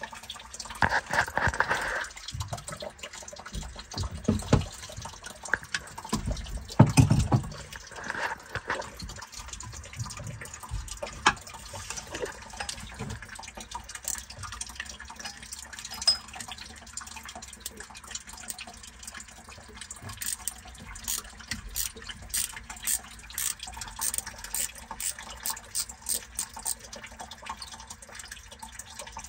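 Water draining from the drain-plug hole on a PCM marine engine's water pump, emptying the cooling water for winter, with wrench and plug knocks during the first several seconds. A run of sharp ticks comes in the last third.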